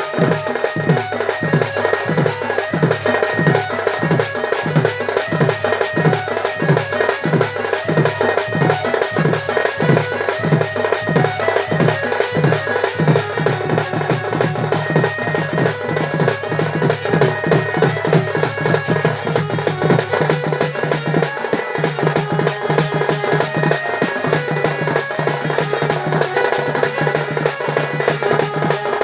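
Fast, dense folk drumming on dhol and tasa drums, with a deep drum tone dropping in pitch about twice a second and a held pitched melody over it. This is the accompaniment of Sambalpuri danda dance.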